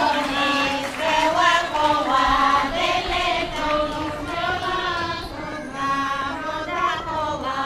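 Bulgarian women's folk choir singing a song in short sung phrases.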